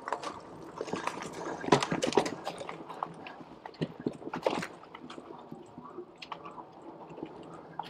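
HAOQI Cheetah fat-tyre e-bike riding over a dirt trail: irregular crunching and clicking from the tyres and the rattling bike.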